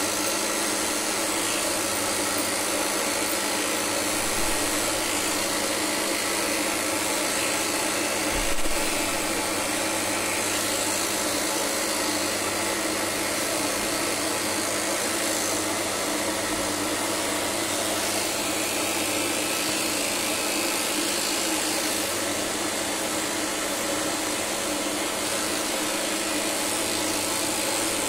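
Electric dog grooming clippers running with a steady buzzing hum as they cut through the coat. There is one soft bump about eight and a half seconds in.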